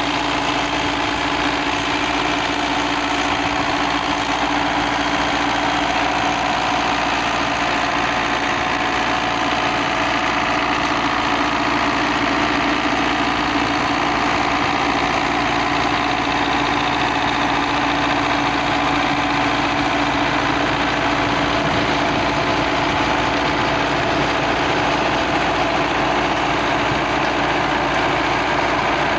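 Tractor diesel engine running steadily with a constant note while the tractor pulls a PTO-driven bed-forming machine through the soil.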